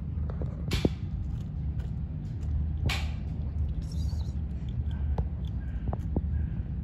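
A kitten crunching dry cat food, small irregular clicks of chewing over a steady low rumble, with two brief sharp swishes about one and three seconds in.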